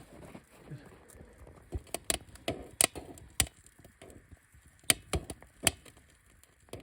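Newly lit campfire of kindling and wood shavings crackling, with irregular sharp pops and snaps.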